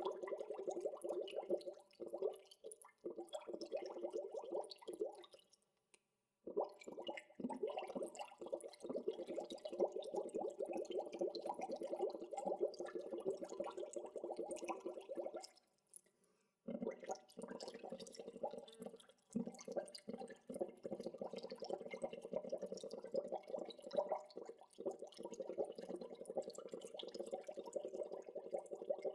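Water bubbling: a dense, continuous stream of small bubbles popping, cutting out briefly twice, about six seconds in and again about sixteen seconds in.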